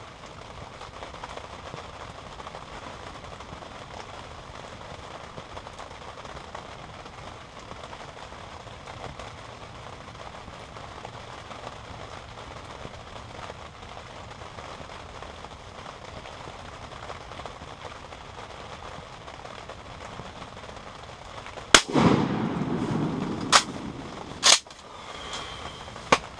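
Steady rain hiss, then about 22 seconds in a single loud blast from a Remington 870 Super Magnum pump shotgun with a rumbling echo that trails off over about two seconds. Two shorter sharp clacks follow within the next three seconds.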